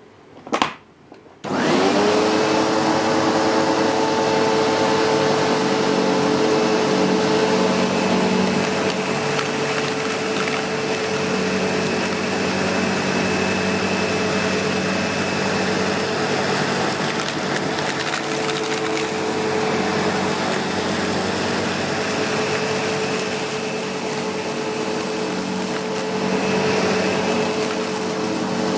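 SEBO X4 Extra bagged upright vacuum cleaner: after a couple of clicks it switches on about a second and a half in, its motor winding up to speed, then runs steadily with a hum and a faint high whine. It is being pushed over carpet strewn with test dirt, its brush roll contacting and agitating the pile.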